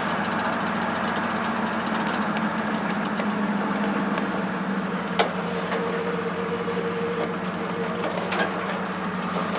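1971 Ford pickup truck running, heard from inside the cab: a steady engine and road drone, with a sharp click about five seconds in and a faint higher whine for a few seconds after it.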